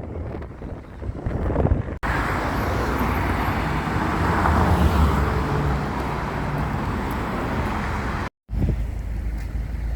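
Car engine running with road and traffic noise, across short edited clips that cut abruptly about two seconds in and again near eight and a half seconds; the sound swells a little about halfway through.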